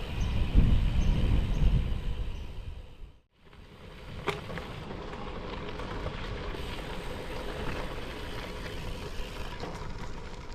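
Strong wind buffeting the microphone of a moving gravel bike: heavy gusting rumble for about three seconds, then after a break a steadier, quieter rush with a faint hum.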